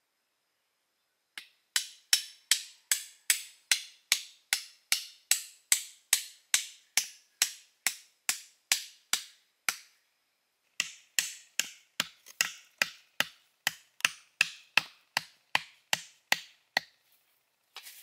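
A tool striking wood over and over at a steady pace of about two blows a second. There are two runs of blows with a pause of about a second near the middle.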